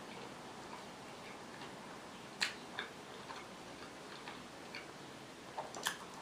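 Close-miked eating sounds: small scattered mouth clicks from chewing, with two sharper clicks, the second as she bites into a fried meat pirozhok near the end.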